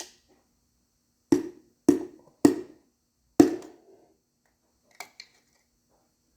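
A piston being tapped down into a cylinder bore of a 360 V8 block: four sharp knocks spaced about half a second to a second apart, then two light clicks near the end.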